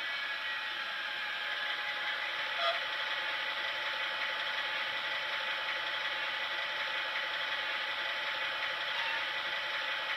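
ESU LokSound digital decoder in an H0 scale model of an FS D445 diesel locomotive playing its diesel engine sound through the model's small speaker: a thin, steady engine sound with almost no bass. A single click about two and a half seconds in.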